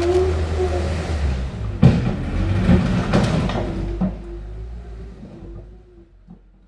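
Train running with a low rumble and two sharp clunks, then fading away over the last couple of seconds.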